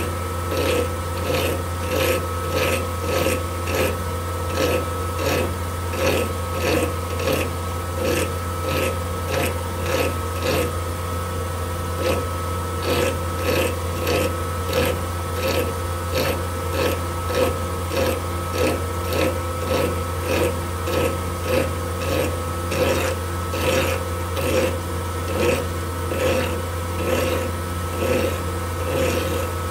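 Hand file stroked against a tungsten button spinning in a metal lathe: a rhythmic rasping about twice a second over the lathe's steady running hum and a steady tone.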